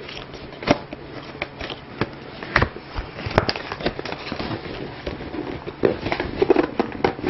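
A graphics card's cardboard retail box being opened by hand: packaging rustling and crackling, with a few sharp clicks and knocks, the loudest about two and a half and three and a half seconds in.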